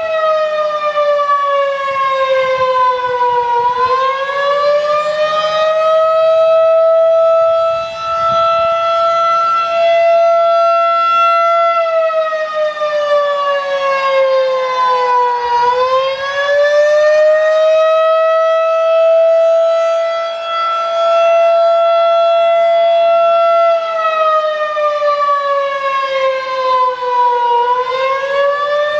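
Federal Signal 2001-DC electromechanical warning siren sounding a loud, rich single tone. The pitch holds steady, then sags slowly and climbs back, three times about every twelve seconds, in a slow wail.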